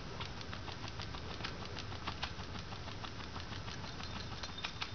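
Maltese puppy rolling and rubbing on carpet: rapid, irregular scratchy clicks and rustles over a low steady hum.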